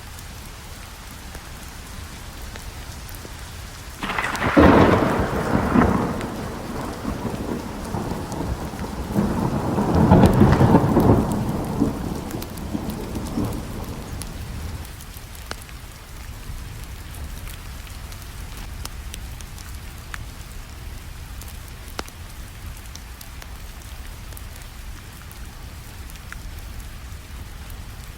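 Steady rainfall with a thunderclap about four seconds in and a second rolling rumble of thunder around ten seconds, dying away by about fifteen seconds; faint crackles from a wood fire tick through the rain.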